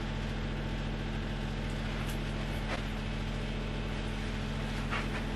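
Steady low electrical hum in a kitchen, with a few faint taps now and then.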